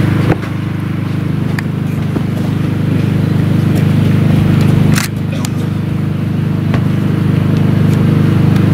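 Steady low mechanical hum, like a running engine or motor, with a few scattered sharp clicks.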